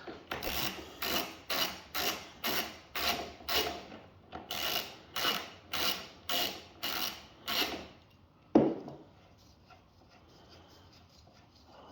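Ratchet wrench with a 14mm socket undoing a lawn mower's wheel bolt: a run of ratcheting strokes, about two a second, with a brief pause halfway. One sharp knock follows near the end.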